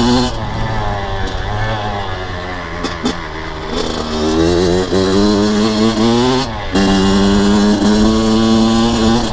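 Kawasaki KX100 single-cylinder two-stroke dirt bike engine being ridden, its pitch rising and falling with the throttle: the revs climb for a few seconds, cut off sharply about six and a half seconds in, then hold a steady higher note. The top end is freshly rebuilt and the engine is on its first break-in ride.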